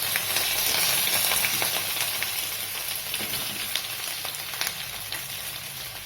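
Hot oil sizzling in a kadai, with mustard seeds, urad dal and curry leaves frying as a tempering. A few light clicks are scattered through the hiss, which is loudest in the first second or so.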